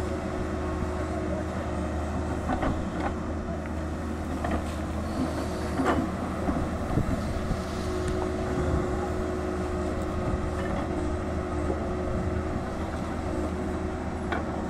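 Tata Hitachi 220 excavator's diesel engine running steadily under load as the bucket digs into the hillside, with a held humming tone and a few short knocks of rock and stone.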